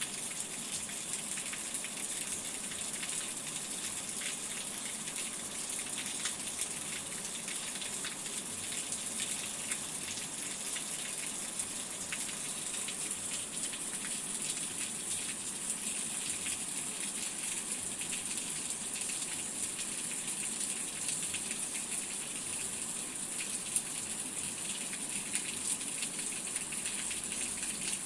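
Steady rain: a dense, even hiss of falling water with many small drop ticks, unchanging throughout.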